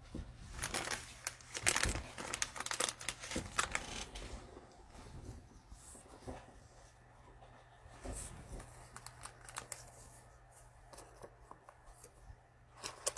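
Trading cards and their foil pack wrapper rustling and crinkling as they are handled. The handling is busiest over the first four seconds, then thins to a few light rustles and taps over a faint steady low hum.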